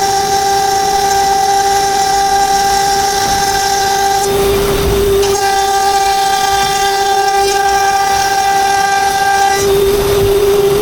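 CNC router spindle whining steadily at high speed, a loud held tone with higher overtones. About four seconds in and again near the end, the upper tone drops out for about a second under a rush of rougher noise.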